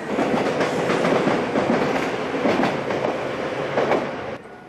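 Seibu commuter electric train running along the track, a steady rumble with the knock of wheels over rail joints, cutting off suddenly near the end.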